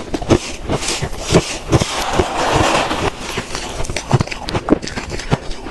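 Freezer frost and ice being bitten and chewed close to the microphone: a run of irregular crisp crunches, with a denser crumbling crunch about two seconds in.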